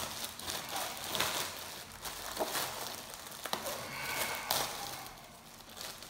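Clear plastic bag crinkling and rustling as it is pulled open by hand, with a few sharp crackles; it quietens near the end.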